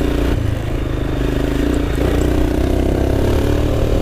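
Royal Enfield Himalayan's single-cylinder engine running under way, its pitch dipping briefly about halfway through and picking up again.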